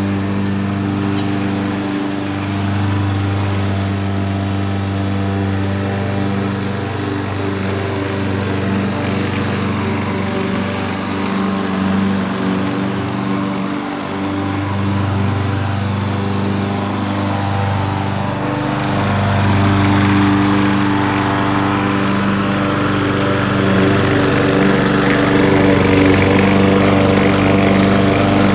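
Craftsman gas push mower's single-cylinder engine running steadily while cutting grass, its low note shifting a little now and then. It grows louder in the second half as the mower comes close.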